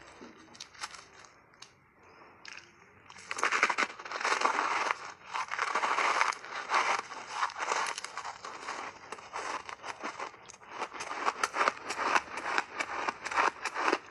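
Ice chunks being bitten and chewed: a few light clicks at first, then, about three seconds in, dense crisp crunching that comes in waves of rapid cracks.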